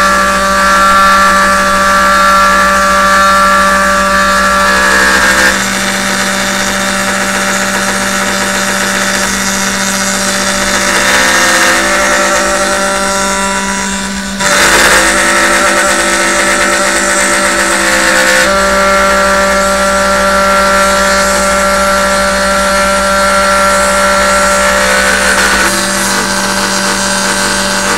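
CNC router milling a wooden coaster. The spindle holds a steady hum while the end mill cuts the wood. The higher whining tones change pitch every few seconds as the cutting moves change, with a brief drop and a sharp rise about halfway through.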